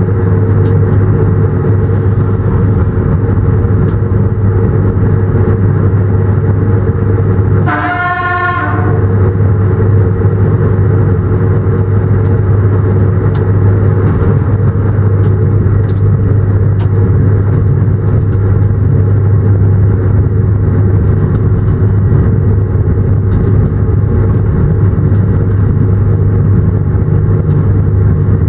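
Steady running drone of a train heard from inside the locomotive cab, with one short horn blast about eight seconds in.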